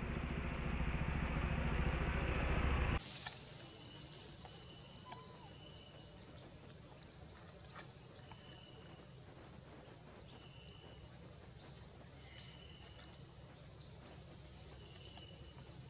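Outdoor ambience: a steady rushing noise cuts off abruptly about three seconds in, leaving quiet background with short high chirps repeating about once a second at two alternating pitches, and a few faint clicks.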